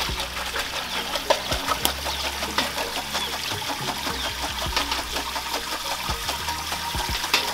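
Palm nut extract pouring in a steady stream from a metal pot through a sieve into a cooking pot, a continuous splashing trickle, as the pulp liquid is strained a fourth time.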